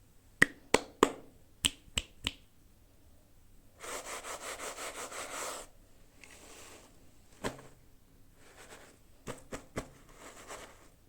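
Hard plastic clicks and taps from toy packaging being handled: a quick run of six sharp clicks, then a rough rasping stretch of about two seconds with a fast ripple, then a few scattered clicks near the end.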